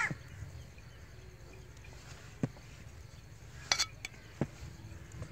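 Kitchen knife cutting through peeled potatoes and tapping a plastic cutting board: a few sharp clicks, one about two and a half seconds in, a quick pair near four seconds and another just after.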